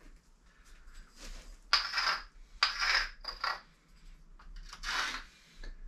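Short scratching strokes of a small hard object on the surface of a concrete atlas stone, scratching a weight mark into it: four or five brief, hissy scratches a second or so apart.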